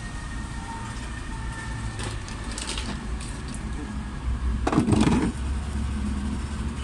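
Tyre inflator running with a steady low hum while pumping up a tyre. About five seconds in there is a brief loud knock, with a few faint clicks before it.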